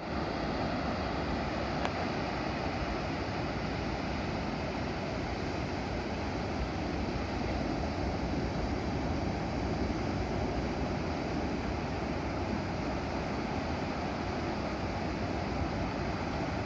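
Surf breaking steadily on the shore, whipped up by an approaching typhoon, with wind blowing across the microphone.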